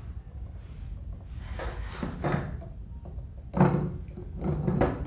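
Handling noises from taking apart an old electric fan: three short scraping, knocking bursts over a low steady hum.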